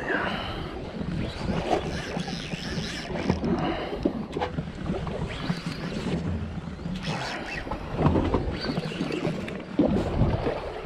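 Wind buffeting the microphone over open sea, in uneven gusts, with water washing against a small boat.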